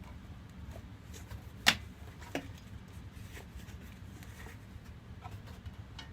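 Hands and tools handling the opened air compressor's parts and wiring: a sharp click about two seconds in, a smaller click just after, and a few faint ticks over a low steady hum.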